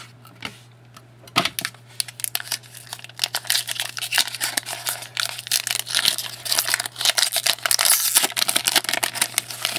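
Foil trading-card pack wrapper being torn open and crinkled, with cards shuffled and handled, a dense crackling that builds after the first second. A faint steady low hum lies under it.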